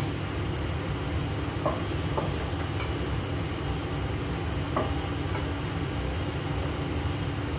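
Steady low rumble of a kitchen range-hood exhaust fan running over a gas stove, with a few light clinks of a serving utensil against a pan and plates, about two seconds in and again near the five-second mark.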